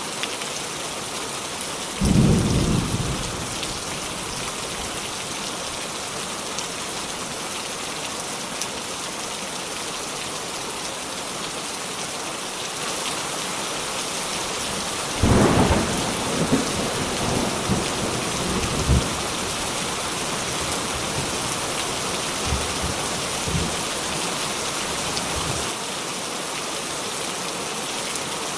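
Steady rain with thunder: a sharp thunderclap about two seconds in, and a second about fifteen seconds in that rolls on in a string of rumbles for several seconds, with a few fainter rumbles later.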